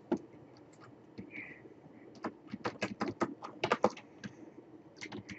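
Computer keyboard being typed on: irregular key clicks, with a quick run of keystrokes in the middle and another near the end.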